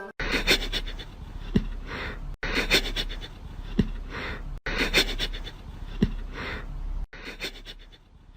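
An animal panting, with a few short clicks. The same two-second stretch is played four times over, each cut off abruptly.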